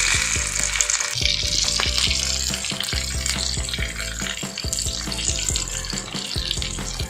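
Breadcrumb-coated prawns deep-frying in hot oil in a small clay pot, a steady sizzling hiss that is loudest in the first second or so, over background music.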